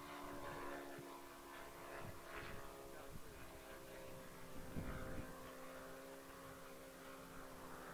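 A model aircraft engine running faintly and steadily at low throttle, its pitch holding nearly level throughout.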